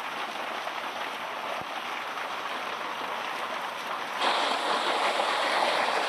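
Hailstorm: hailstones and rain pelting down in a dense, steady hiss. It gets suddenly louder and brighter about four seconds in.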